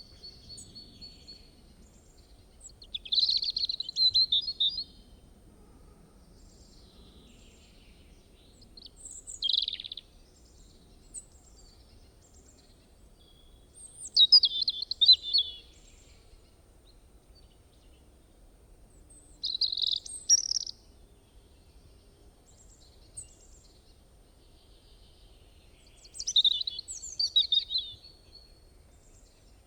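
Bird singing in short bursts of quick high chirps and trills, one burst every five or six seconds, with fainter chirps between them.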